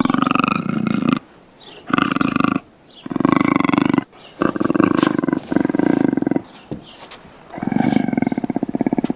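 Big-cat roars and snarls taken from black panther and cougar recordings, coming in about five loud bursts with short pauses between them. The last one breaks into a rapid, pulsing growl near the end.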